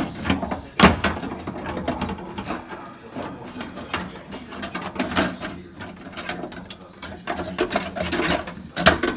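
A rusted, cut-out section of car floor pan being wrestled loose from the body: sheet metal scraping, rattling and clanking irregularly, with one loud clank about a second in.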